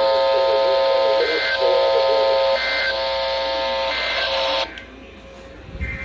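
Weather radio alert tone: a steady buzzing tone with a short higher beep about every second and a half, cutting off suddenly a little over four and a half seconds in. The higher beeps carry on more quietly after that, and a low thump of handling comes near the end.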